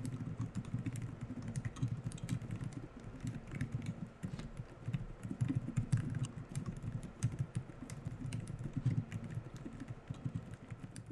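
Fast continuous typing on a VN96 mechanical keyboard with Outemu Peach V3 silent linear switches and Aifei Modern Dolch keycaps: a steady stream of soft, low, muffled keystrokes with little high click.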